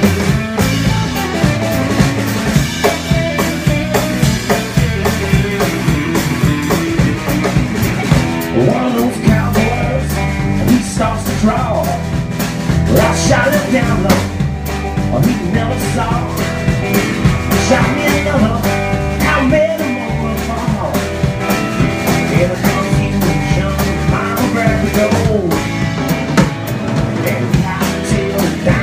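Live country-rock band playing an instrumental break: drum kit with snare and bass drum keeping a steady beat, a plucked bass close by, and an electric guitar lead with bending notes.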